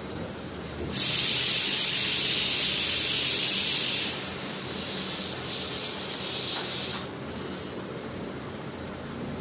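A loud steady hiss that starts suddenly about a second in, drops to a softer hiss at about four seconds and cuts off at about seven seconds.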